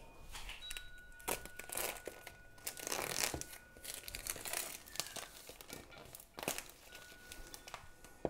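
Clear plastic shrink-wrap being torn and peeled off a cardboard product box, crinkling in irregular bursts.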